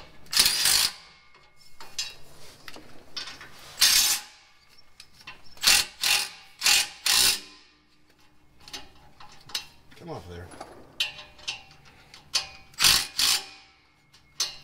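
Hand socket ratchet clicking in short runs of strokes, running down the bolts on an exhaust pipe flange. The runs come in bunches: one near the start, one around four seconds, four quick runs a little past the middle, and two near the end.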